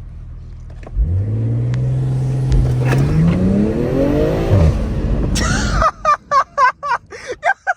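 BMW M340i's turbocharged straight-six during a launch-control attempt. About a second in it revs up and holds a steady rpm, then climbs in pitch as the car pulls away. The note drops sharply off throttle, followed by a short hiss, then voices and laughter near the end.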